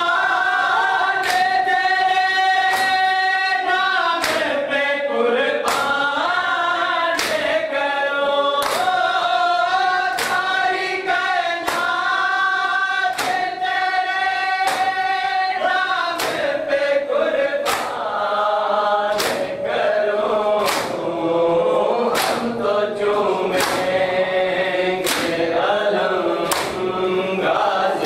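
Men chanting a Muharram noha together while beating their chests in unison (matam): sharp slaps on an even beat, about one every second and a half, coming a little faster near the end.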